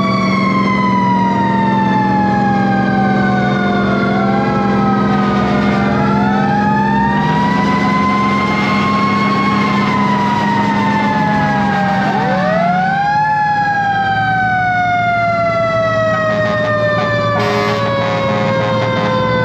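Several fire engine sirens sounding over each other. Each winds up quickly to a wail and then coasts slowly down in pitch, the way mechanical sirens do. One falling wail runs through most of the stretch, and fresh wind-ups come about four, six and twelve seconds in. Underneath is the steady hum of the pumper's Detroit 8V71 diesel engine.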